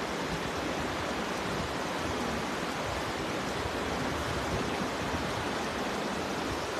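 Steady rushing of flowing river water, an even hiss with no breaks.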